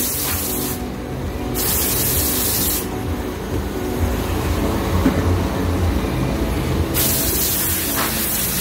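Pressure-washer jet spraying water onto a car, hissing in spells: it stops about a second in, resumes briefly, stops again near three seconds and comes back near the end, over a steady low hum.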